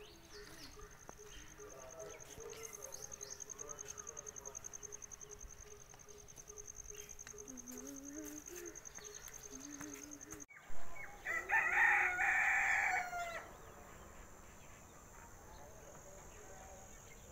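A rooster crows once, loud, a little past the middle, a call of about two and a half seconds. A steady, fast-pulsing high-pitched trill runs underneath.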